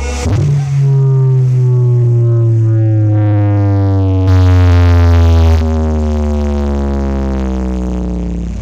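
A carnival horeg sound system playing a loud electronic-music bass drop: one long, deep synth note whose pitch slides slowly downward for about eight seconds, getting louder and brighter for a moment around the middle, then cutting off near the end.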